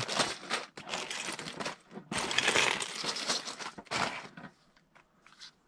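Loose plastic LEGO bricks clattering and clicking against each other, with a plastic bag crinkling, as a hand rummages through a pile of parts; it dies away about four and a half seconds in.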